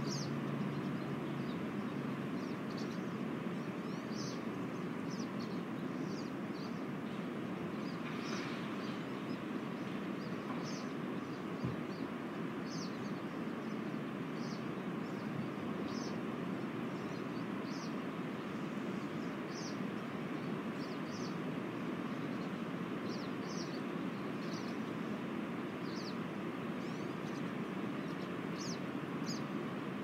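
Wind rushing steadily through conifer trees. A small bird gives short, high chirps every second or two over it.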